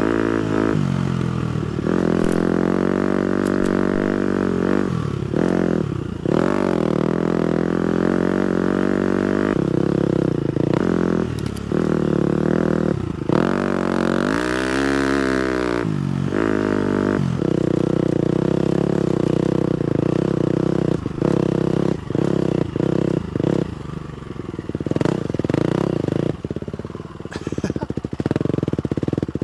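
250cc four-stroke single-cylinder motocross bike engine under way, holding steady revs with brief throttle chops. The revs climb and fall back about halfway through, and the throttle comes on and off in quick, choppy bursts near the end.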